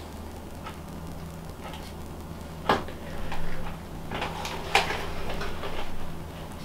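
Handling noise from marking lines on a leather beaver tail grip on a bow handle: two sharp clicks, one a little under three seconds in and one near five seconds, with rubbing and scratching between them, over a steady low hum.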